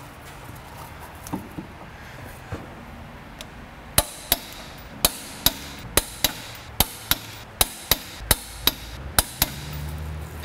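A few faint knocks, then a run of sharp metallic clicks, about three a second, from about four seconds in, as hand tools work on the flywheel bolts.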